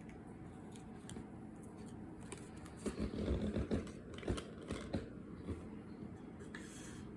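Trading cards being handled and sorted by hand: light taps and rustling, with a busier flurry of shuffling and knocks about three seconds in.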